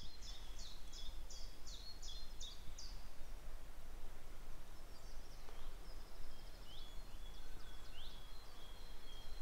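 Woodland songbirds: one sings a fast run of identical high repeated notes, about three a second, that stops about three seconds in; after that, other birds give a few short chirps and a brief trill. A steady low rumble lies underneath.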